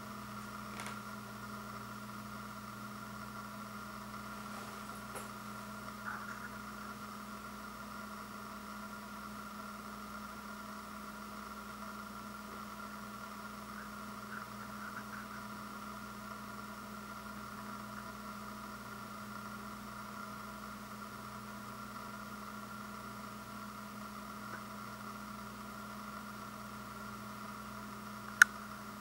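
A steady background hum with a few faint ticks, and one sharp click near the end.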